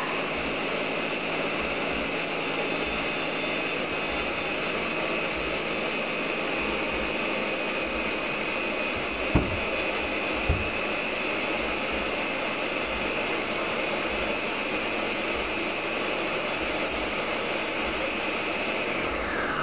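Ninja countertop blender running steadily at full speed, blending frozen mango, frozen pineapple, banana and soaked almonds into a smoothie. Two brief thumps come just past the halfway point, and the motor cuts off at the very end.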